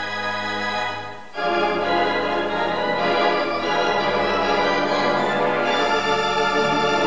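Organ playing sustained chords in a slow melody. Just over a second in, the sound breaks off briefly, then comes back louder with a new chord that is held.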